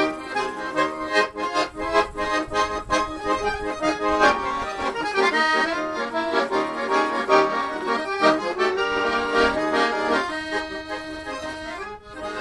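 Accordion music in a traditional style, a quick run of changing notes that settles into a held chord near the end.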